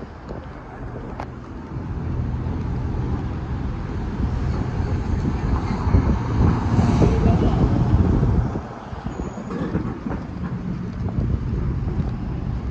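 Street traffic: a car drives past close by, a low rumble that builds over several seconds and falls away sharply about eight seconds in, with traffic continuing more quietly afterwards.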